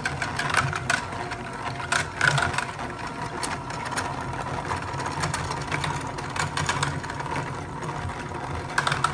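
Electric hand mixer running steadily, its beaters whirring through milk and instant vanilla pudding mix, with a steady motor whine and scattered light ticks.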